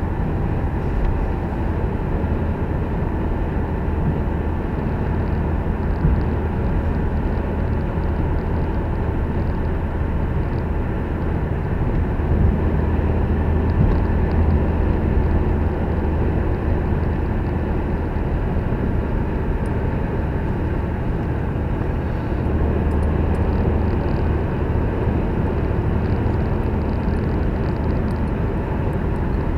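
Steady road noise and engine drone inside the cabin of a moving car, a constant low hum under a broad rush.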